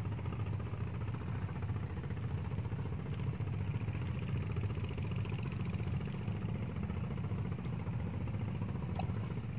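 A small engine running steadily with an even low pulse, with a faint click near the end.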